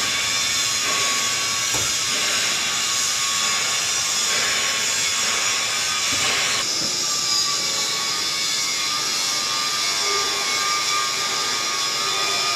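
Cooling fan of a stud welding machine running inside its open cabinet: a steady rush of air with a faint steady tone through it.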